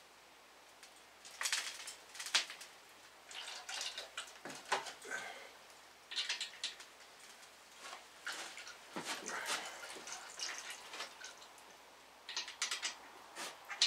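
Clusters of light metallic clicks and clinks from hand-tool work on the bare 3.5 L five-cylinder engine on its stand, coming in several short bursts with pauses between.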